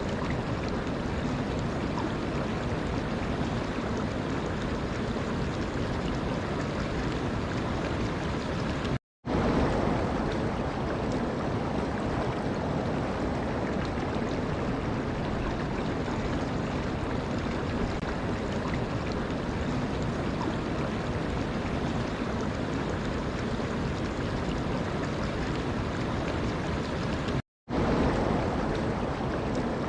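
Running water rushing steadily, an even wash of noise. It cuts out to silence for a split second twice, about nine seconds in and near the end, coming back slightly louder each time.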